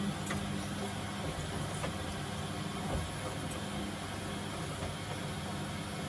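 Samsung front-loading washing machine tumbling wet laundry in its prewash: a steady low motor hum with the swish of the turning drum and a few faint ticks.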